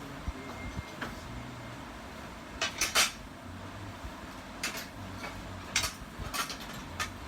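Scattered sharp clicks and clatters of small hard objects being handled, the loudest a quick cluster a little before halfway, over a steady low hum.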